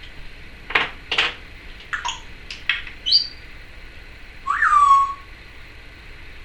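Timneh African grey parrot making a string of sharp clicks and short chirps, then a louder whistle that drops in pitch and holds briefly.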